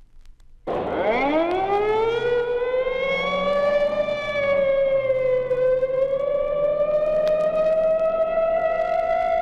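A siren wail that starts suddenly, sweeps quickly up in pitch over about a second and a half, then holds a steady tone with a slow rise and fall.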